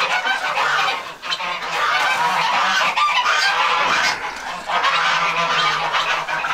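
A flock of domestic geese honking loudly, many calls overlapping into a continuous racket that eases briefly a couple of times.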